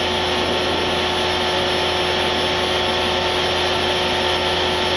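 Turboprop airliner cabin noise heard from the cockpit: engines and propellers giving a steady drone with a constant low hum and a steady mid-pitched tone, mixed with airflow hiss, unchanging throughout.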